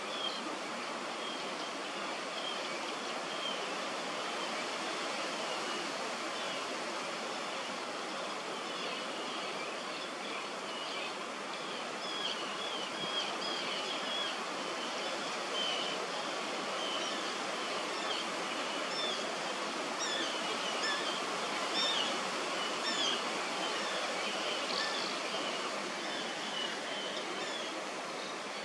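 Steady outdoor background noise with many short, high, down-slurred bird chirps scattered through it, busiest in the second half.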